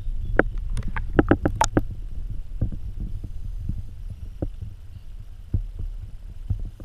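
Muffled water sound picked up by a GoPro in its waterproof housing as it goes under the pond surface: a steady low rumble with a quick run of clicks and knocks in the first two seconds, then scattered knocks.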